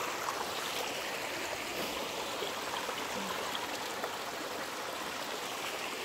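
Small forest stream flowing, a steady rushing of water.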